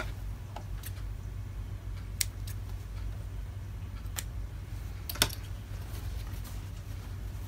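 Small sewing scissors snipping thread ends, a few sharp snips with the loudest about five seconds in, over a low steady hum.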